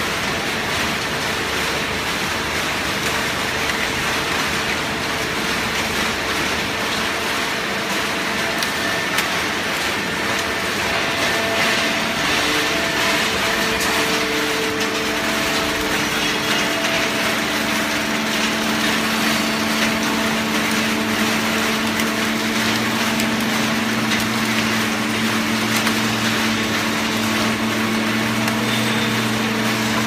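Horizontal hydraulic baler running: a loud, steady machinery din with a constant hum from its hydraulic pump motor. A deeper hum joins about two-thirds of the way through.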